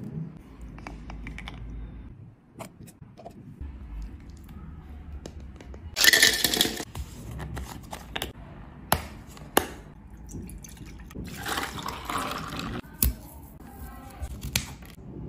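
Close-miked food-prep handling: thick strawberry jam spooned wetly into a glass jar, then a plastic screw cap twisted open on a milk carton and a paperboard whipping-cream carton torn open. Two loud noisy bursts come about six and twelve seconds in, with a few sharp clicks between.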